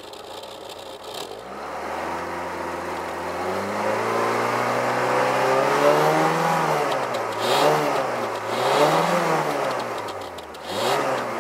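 VW Golf Mk2's 1.3-litre four-cylinder engine revved through its exhaust: the pitch climbs slowly from idle and is held for a moment. It then drops and is blipped three more times, falling back toward idle between blips.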